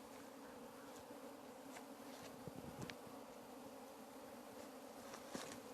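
A swarm of honeybees buzzing as they fly around a log hive and move into it: a faint, steady hum.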